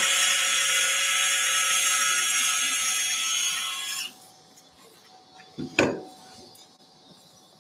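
Cordless surgical power driver whining at speed as it spins a 0.071-inch pin to drill a hole into a dog's nasal bone. It stops abruptly about four seconds in. About two seconds later comes one sharp knock.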